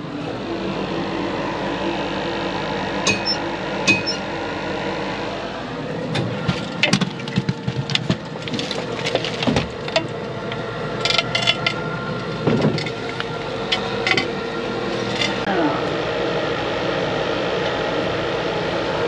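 Mine-shaft hoist running steadily as a shaft-sinking bucket fully loaded with rock is raised up the shaft, with scattered clanks and knocks from the bucket and its hook.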